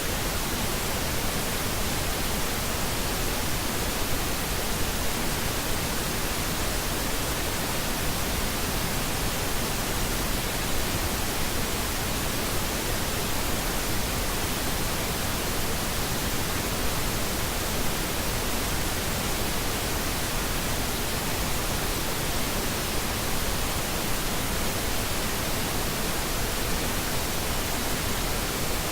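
Steady pink noise: an even, unchanging hiss spread across the whole range, used as a masking bed for a subliminal track.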